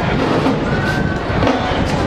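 Marching band music mixed with stadium crowd noise and cheering.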